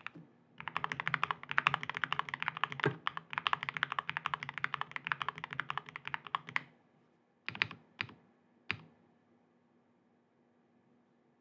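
Fast typing on a Tiger 80 mechanical keyboard with stock Gateron Oil King linear switches, a PC plate and PBT keycaps, a dense run of key clicks that ends about two-thirds of the way in. It is followed by three separate, heavier key strikes about half a second apart, then the typing stops.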